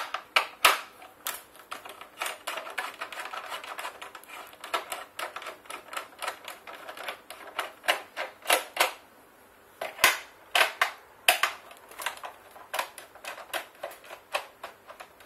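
Metal screwdriver working the screws out of a rice grinder's plastic base: a run of quick, irregular clicks and scrapes, with a few louder knocks.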